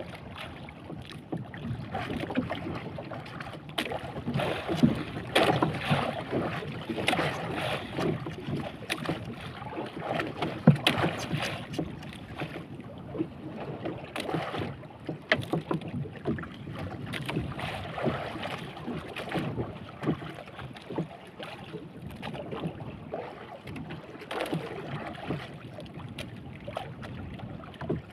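Small boat drifting on open sea: water sloshing and slapping against the hull in uneven swells, with wind on the microphone and scattered short knocks.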